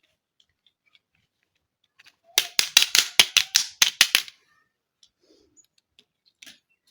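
A quick run of about ten sharp plastic clicks, about five a second, lasting about two seconds, from handling the pieces of a plastic toy kitchen play set.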